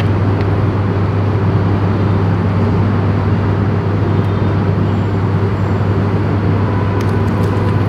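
Steady, unbroken background rumble with a strong low hum, at a constant level throughout.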